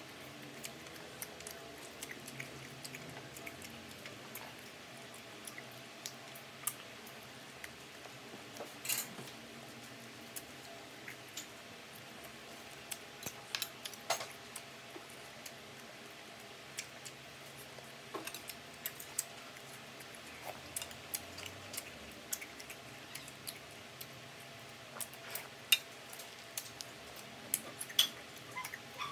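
Close-up eating sounds: irregular crunches, smacks and sharp clicks from crispy fried duck being chewed, over a faint steady hum, with a few louder clicks near the end.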